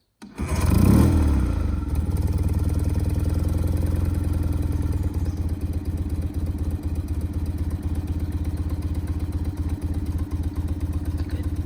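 A 1967 BMW R69S's air-cooled flat-twin engine starting from cold after its carburettors have been tickled: it catches almost at once, revs up briefly, then settles into a steady, even idle.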